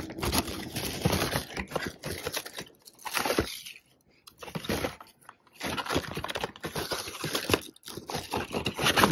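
Packing paper crinkling and clear plastic display boxes clattering and scraping against each other as a cardboard case of boxed diecast cars is rummaged through, in irregular bursts with short pauses.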